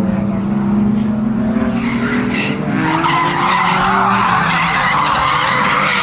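Drift car's engine held at high revs, then from about three seconds in the tyres squeal as the car slides; the squeal is the loudest sound, with the engine still running under it.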